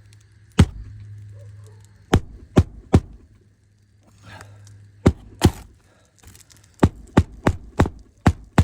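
Roofing nails being driven into asphalt shingles: sharp strikes in short groups, a single one, then three, then two, then five in quick succession near the end. A steady low hum runs underneath and fades out about halfway through.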